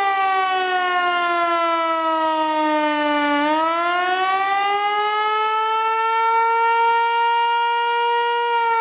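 Federal Signal Eclipse 8 outdoor warning siren sounding a wailing Attack signal. Its pitch slides down for about three seconds, turns and rises again, holds high for a couple of seconds, and begins to fall once more near the end.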